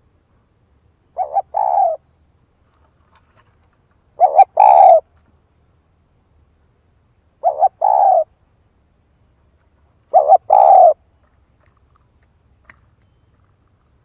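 Spotted dove cooing four times, about three seconds apart, each call two short notes followed by a longer coo.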